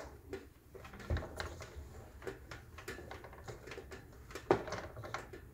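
Irregular small clicks and creaks from a 24 mm manual knockout punch being turned with an Allen wrench, the draw screw pulling the punch through 3 mm aluminium, with a low thump about a second in and a louder click about four and a half seconds in.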